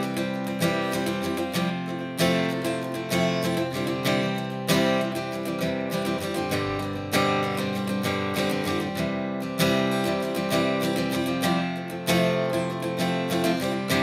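Background music: a strummed acoustic guitar playing steadily.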